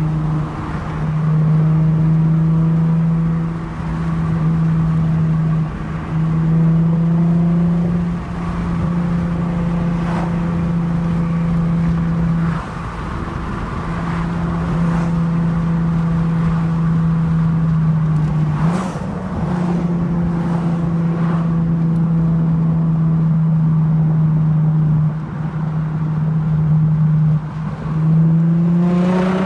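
Lexus IS350 V6 with a Tsudo mid pipe and muffler delete, heard from inside the cabin while cruising: a loud, steady exhaust drone. It eases off briefly a few times and rises in pitch near the end as the car accelerates.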